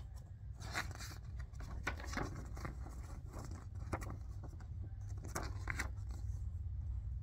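Glossy paper DVD-case inserts being handled and flipped over, giving irregular rustles and crinkles, over a low steady hum.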